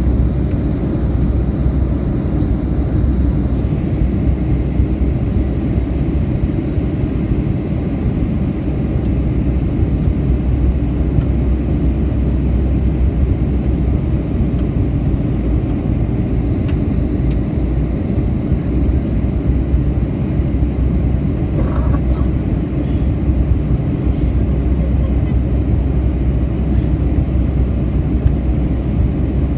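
Cabin noise inside a Boeing 757-200 in flight: a steady low roar of the turbofan engines and airflow, heard from a window seat beside the engine.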